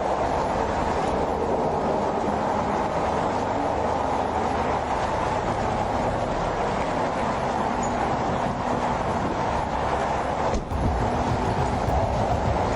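Steady road and engine noise heard inside a police patrol car's cabin, a continuous rumbling hiss with no break.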